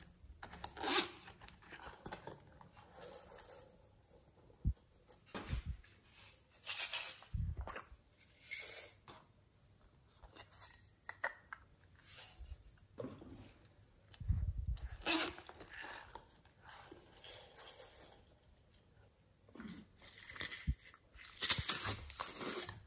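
Hands handling and opening small plastic pineapple-shaped containers of clay: irregular rustles and scrapes with a few sharp clicks, and clay squeezed out of a container into a tray of slime.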